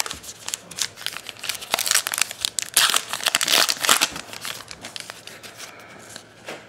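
Allen & Ginter baseball card pack being picked up and torn open by hand, its wrapper crinkling and rustling, loudest about three to four seconds in.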